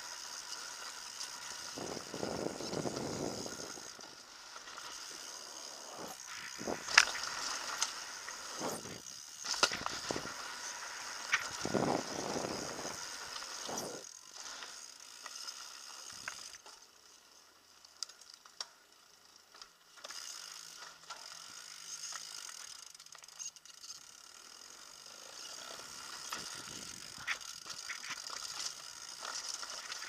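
Mountain bike riding down a rough dirt and rock trail: the bike rattles over the bumps, with its freewheel hub ticking while coasting, and several sharp knocks from hits in the first half.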